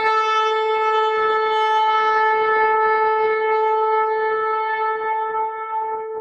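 A shofar sounding one long, steady note with many overtones, beginning to fade near the end.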